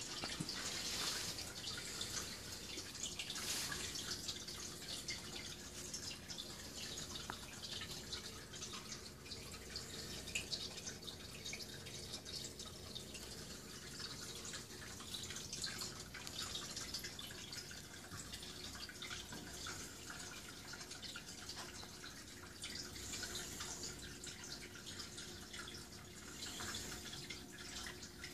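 Aquarium water trickling and dripping steadily, a constant run of small drips and splashes, over a faint steady hum.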